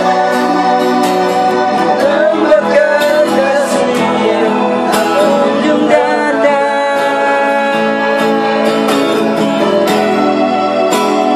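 Music: a song with singing over acoustic guitar and a steady beat.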